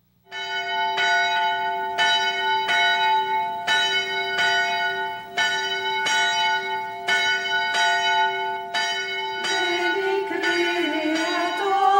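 A church bell rung repeatedly, roughly one stroke a second, each stroke ringing on into the next. Near the end, singing comes in over the bell.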